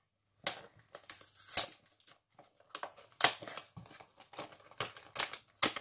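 A boxed set of washi tape rolls being handled and opened by hand: scattered rustles, crinkles and light clicks of cardboard and plastic packaging, coming in irregular short bursts.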